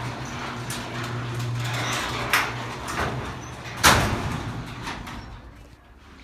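Liftmaster chain-drive garage door opener running to open the door: a steady motor hum with the rattle of the chain and rolling door, which drops away about two seconds in. Two sharp knocks follow, the louder one about four seconds in, as the run ends.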